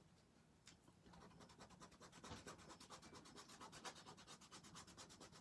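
A white crayon scribbling on a journal page coated with matte medium: faint, rapid back-and-forth scratchy strokes that start about a second in and keep up a quick, even rhythm.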